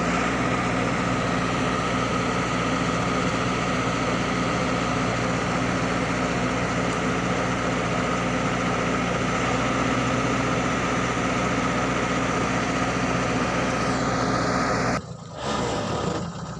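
Log truck's engine idling steadily, with a steady whine on top. About fifteen seconds in the sound suddenly drops out briefly and comes back changed.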